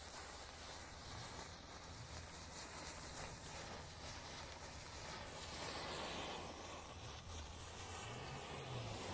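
A row of standing matches catching one after another, a faint fizzing hiss of match heads flaring as the flame runs along the line, a little louder in the second half.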